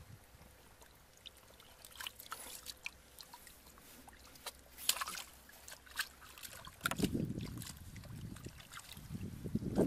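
Water dripping and splashing in scattered drops as a fish is lifted out of a shallow muddy puddle, then hands scooping and sloshing through the muddy water from about seven seconds in.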